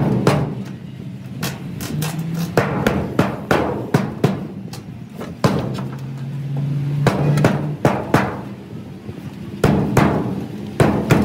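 Hammer blows on metal, sharp ringing strikes at an uneven pace, several close together, over a low steady hum that comes and goes.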